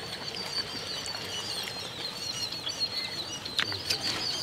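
Small birds chirping over and over in a steady stream of short high calls, with a few sharp clicks from hands working the rice on banana leaves about three and a half seconds in.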